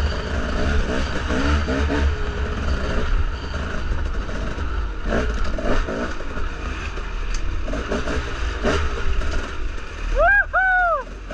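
Dirt bike engine running and revving on and off, with a few sharp knocks in between. Near the end, two short, loud squeals that rise and fall in pitch.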